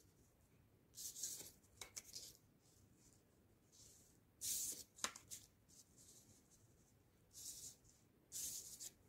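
Paper cut-outs slid and shuffled by hand across a sheet of paper: several brief, faint rustles, with a light tap about five seconds in.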